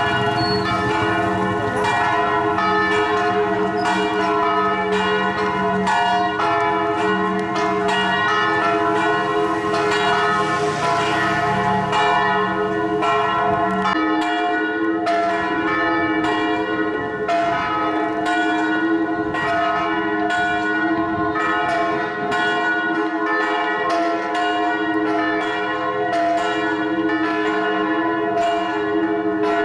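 Church bells pealing: several bells struck one after another at about two strikes a second, their tones overlapping and ringing on without a break.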